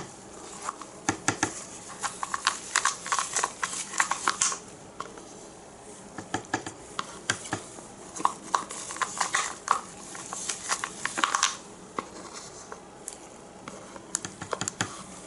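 Bursts of light, quick clicking and tapping from plastic paint cups and containers being handled while paint is layered into a cup, with short pauses between bursts.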